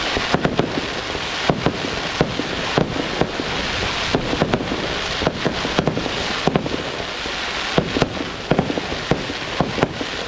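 Aerial fireworks display: a dense crackling hiss from crackling-star shells, with sharp bangs several times a second at irregular intervals.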